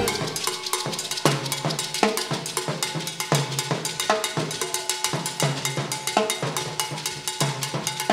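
Latin percussion section playing alone, without bass or the rest of the band: a cowbell struck in a fast, steady rhythm over congas and timbales, with deep conga tones recurring throughout.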